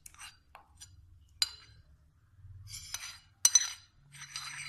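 A metal spoon clinking and scraping against a bowl while scooping out fresh cream: a few sharp ringing clinks, the loudest about three and a half seconds in, with softer scraping between.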